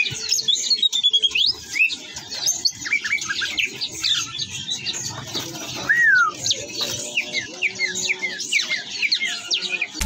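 Many caged songbirds chirping and whistling over one another in a dense, continuous chorus of short notes, with one louder downward-sliding whistle about six seconds in.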